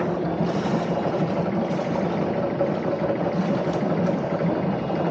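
Sailboat's single-propeller inboard engine idling steadily.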